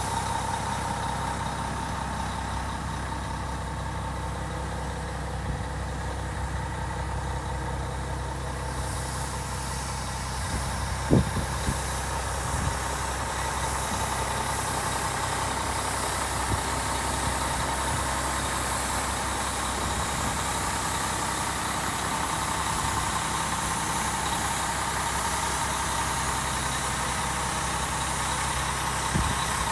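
1998 Mack CH613 tractor's diesel engine idling steadily. A single short knock sounds about eleven seconds in.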